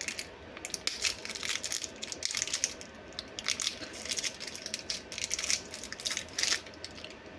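Irregular crinkling and crunching, many short crackles close together and uneven in loudness: a snack and its plastic wrapper being handled.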